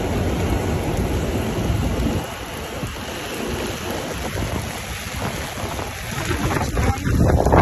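Heavy rain beating on an umbrella overhead and on wet pavement: a steady, dense hiss with a deep rumble underneath. It is loudest in the first two seconds, eases a little, then swells again near the end.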